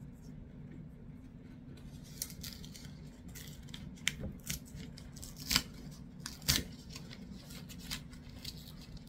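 Paper template being torn away from around rows of small finishing nails in a board: a series of short, scattered paper rips, the loudest two about a second apart past the middle.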